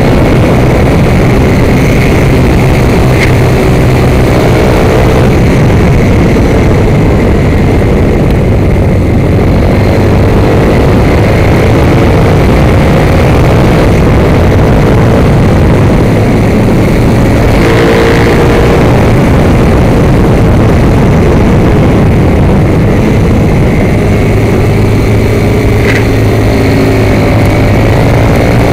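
Motorcycle engine at speed, its revs rising and falling through a series of corners, under a loud, constant rush of wind and road noise on the on-board microphone.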